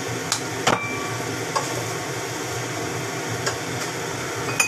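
Kitchen cookware and utensils being handled at the stove: a handful of sharp knocks and clinks, one ringing briefly, over a steady hiss.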